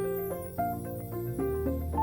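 Background music: a light melody of mallet-like notes over a steady bass.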